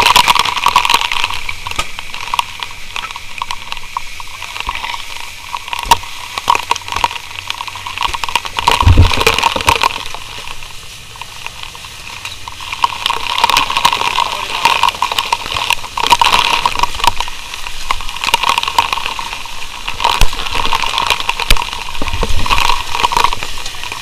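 Fire hose spraying a jet of water onto a burning wooden plank wall: a loud, steady rushing hiss that swells and fades. Sharp knocks of an axe striking the boards come at irregular moments, with one heavy thud about nine seconds in.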